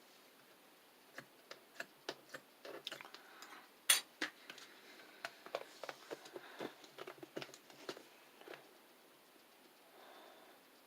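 Ice slime being pressed and handled, its hardened crust crackling in irregular crisp clicks and snaps. The loudest snap comes about four seconds in, and the crackling thins out near the end.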